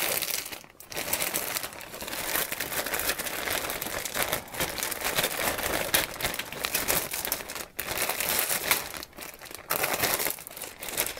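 Thin plastic bag crinkling and rustling as plastic model-kit sprues are pulled out of it, with two brief pauses.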